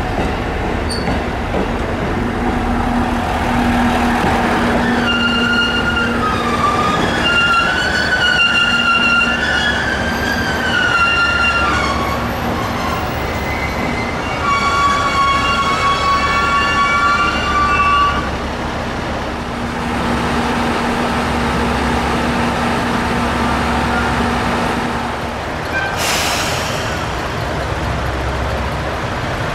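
Diesel railcars of the KiHa E130 and KiHa 100 series running at stations: a steady engine hum, with a high wavering squeal for several seconds a few seconds in and again a little past the middle.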